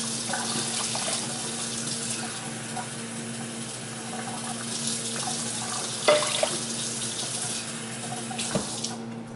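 Kitchen tap running steadily as water is drawn into a measuring cup, with a couple of short knocks in the second half.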